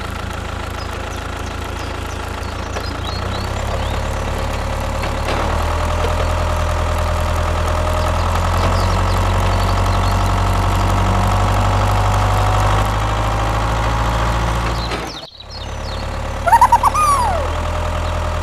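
Tractor diesel engine running steadily with a low rumble, a little louder a few seconds in. It breaks off briefly about fifteen seconds in and starts again, with a few short high chirps soon after.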